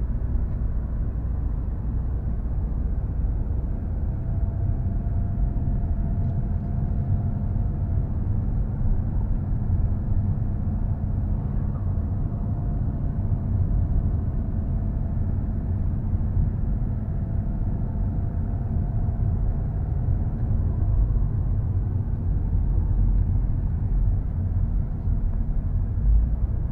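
Car driving, heard from inside the cabin: a steady low rumble of engine and road noise, with a faint hum that drifts slightly in pitch.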